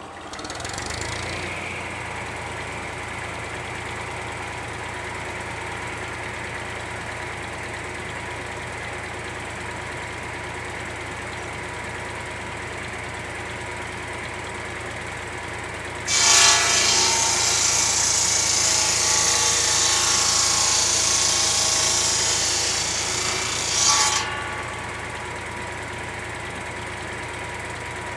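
Tractor-driven circular saw bench running steadily, the tractor engine and spinning blade coming up to speed in the first couple of seconds. About sixteen seconds in, the blade cuts through a wooden plank for around eight seconds, a loud high-pitched cutting noise that peaks as the cut finishes, then the saw runs free again.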